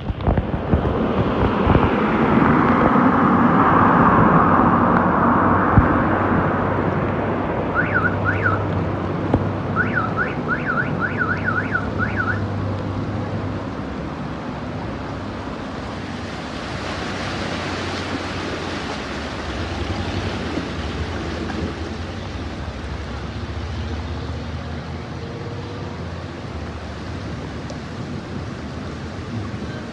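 Floodwater running over a street while vehicles drive through it, their tyres sloshing and spraying through the water over a low engine hum. Two short runs of rapid, high up-and-down chirps come about a quarter and a third of the way in.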